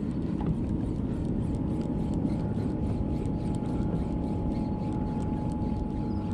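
Boat under way on open water: a steady low motor rumble with water and wind noise and scattered small splashes, and a thin steady whine that joins about a second in.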